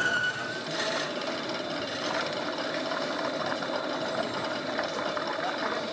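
A small motor running with a steady buzzing whine.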